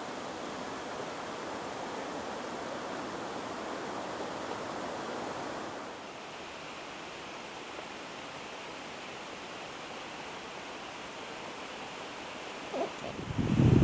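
Steady rushing of flowing river water, its tone shifting about six seconds in. Near the end, wind buffets the camcorder's built-in microphone in a few low thumps, louder than the water.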